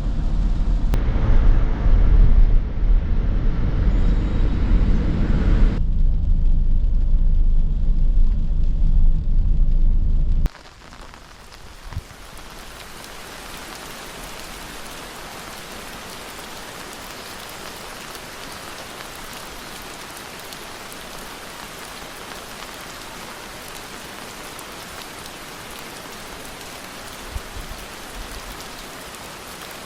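A loud low rumble for about the first ten seconds, which cuts off abruptly. Steady rain follows, falling evenly, with an occasional single drop or knock.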